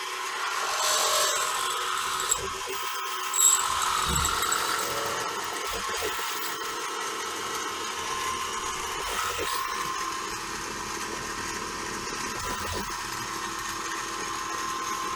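CNC-converted mini mill spindle turning a 13/64 drill at about 1200 rpm as it feeds slowly down in a drilling cycle, a steady whine with two short sharp sounds between two and four seconds in.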